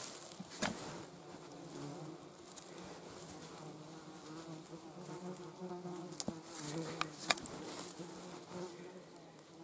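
Flying insects buzzing close by, a wavering drone that rises and fades as they circle. A few sharp clicks and a brief scrape come from hands digging in stony soil.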